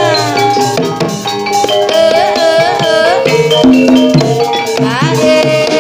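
Live ebeg accompaniment music: tuned percussion playing a melody over drumming, with many notes that bend up in pitch.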